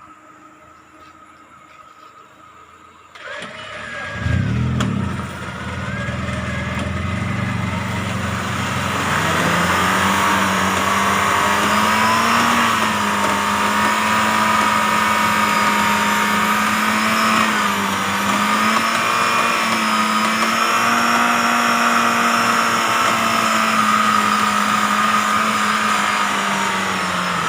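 A motor starts up about four seconds in with a quick rise in pitch. It then runs loud and steady under load, its pitch rising and dipping slightly.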